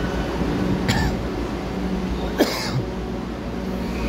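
Steady low hum of a metro train standing at the platform, with two short sharp sounds about one and two and a half seconds in, the second louder.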